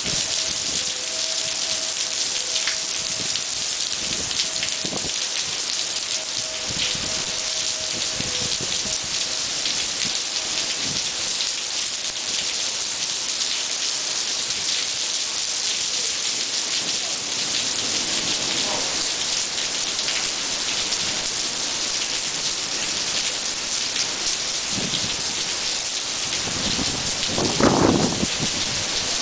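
Torrential rain from a supercell's downburst pouring onto cobblestone paving and puddles, a dense steady hiss, with occasional low rumbles and a louder swell near the end.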